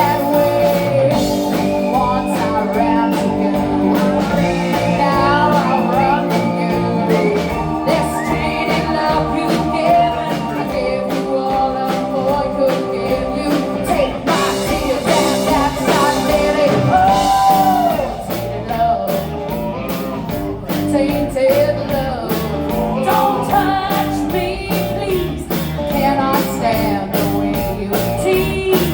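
Live rock band playing with a lead singer, electric guitar and drums keeping a steady beat.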